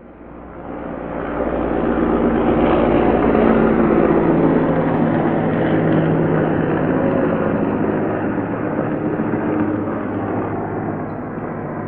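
Heavy military transport helicopter flying, its rotors and turbine engines making a continuous drone with a steady low hum. It fades in over the first two seconds, then holds steady and eases off slightly near the end.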